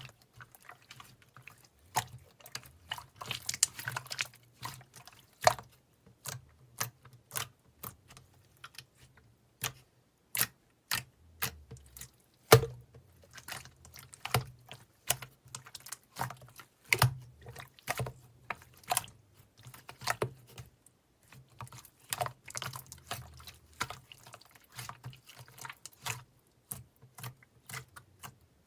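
An irregular run of sharp clicks and taps, some louder than others, with a faint low hum underneath.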